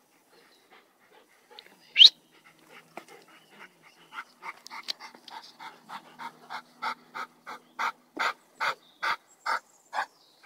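Dog panting hard, the pants growing louder and more regular to about two or three a second. About two seconds in, a single short, high squeak rises sharply in pitch.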